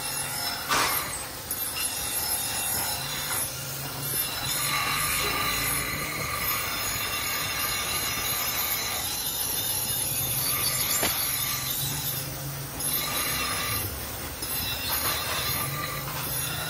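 Bench grinder running while a steel hunter-axe head is held against its spinning pink wheel: a steady grinding whine with rubbing hiss. It eases and returns a few times as the piece is shifted on the wheel.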